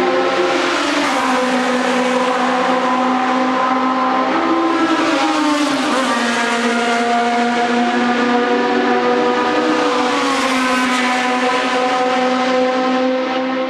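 Historic Formula 1 race car engine running hard at high, fairly steady revs, its pitch dipping and climbing back twice, about 5 and 10 seconds in.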